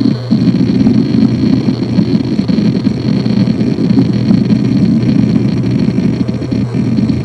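Toshiba MG04ACA100N 1TB single-platter 3.5-inch 7200 rpm hard drive reading while an operating system boots from it. Dense, rapid head-seek chatter runs over the steady hum of the spinning platter.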